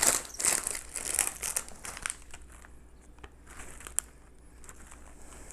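Plastic snack bag of croutons crinkling as it is handled, dense for the first two seconds or so, then thinning to scattered crackles with a sharp click about four seconds in.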